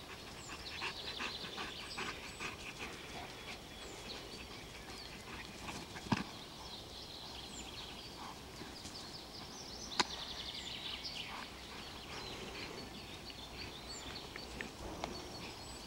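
A dog and its handler scuffling and running on grass during bite-sleeve work: footfalls, rustling and scuffing, with two sharp knocks about six and ten seconds in. Birds chirp faintly in the background.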